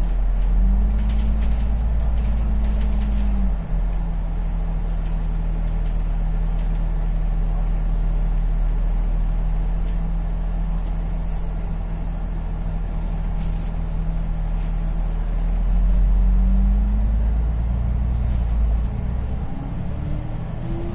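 A bus's engine and drivetrain heard from inside the cabin: a steady low drone with a whining tone that drops slightly a few seconds in and rises again in the last few seconds as the bus picks up speed.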